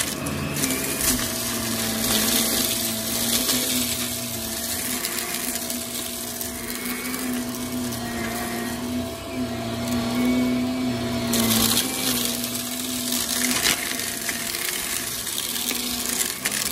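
Shark Navigator XL upright vacuum cleaner running over carpet: a steady motor hum and rushing suction, with scattered ticks and rattles as bits of debris are sucked up. The suction hiss grows louder for a few seconds past the middle.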